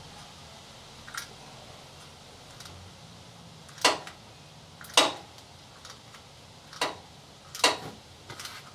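Five sharp metallic clicks and clinks of tools being handled, spaced unevenly, the two loudest about four and five seconds in.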